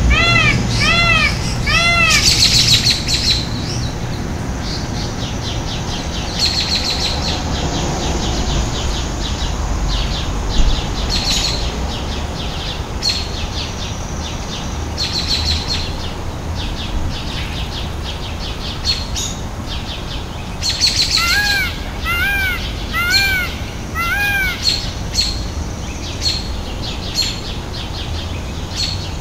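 Indian peafowl calling: a run of four loud, arching calls about half a second apart at the start, and another run of four about 21 seconds in. Small birds chirp repeatedly underneath.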